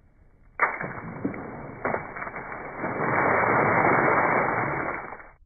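A water balloon popped with a pin over a boy's head: a sudden sharp pop about half a second in, then several seconds of noisy rushing sound with a single knock near the two-second mark, growing louder in the last couple of seconds.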